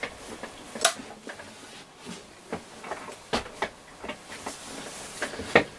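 Scattered light knocks and clunks of a transistor radio's emptied case being handled and set aside on a workbench, the loudest about a second in and again near the end.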